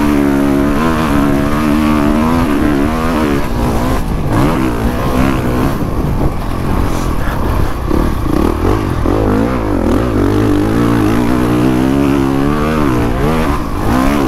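Honda CRF450 motocross bike's single-cylinder four-stroke engine running hard under a rider. Its pitch rises and falls with throttle and gear changes, with a brief drop about four seconds in.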